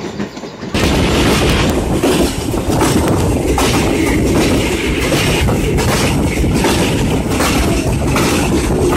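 Running noise of a moving passenger train, which cuts about a second in to a much louder, steady rumble and rush of a train in motion, with heavy wind buffeting on the microphone.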